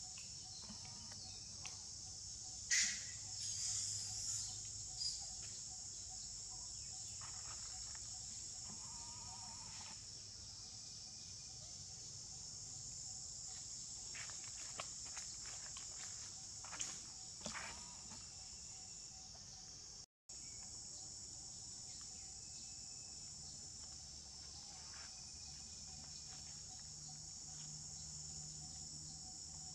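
Steady high-pitched insect chorus, with a few short rustles and knocks over it, the loudest about three seconds in.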